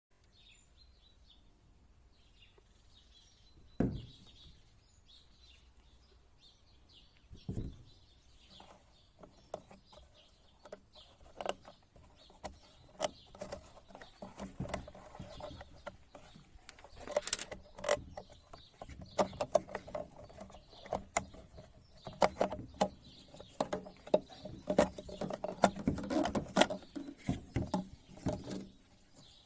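Irregular clicks and knocks of things being handled, sparse at first with two louder knocks, then coming thick and fast through the second half.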